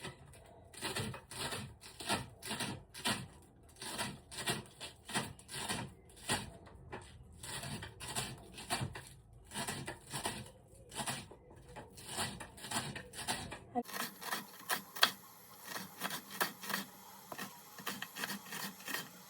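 Repeated short scraping strokes, about two to three a second.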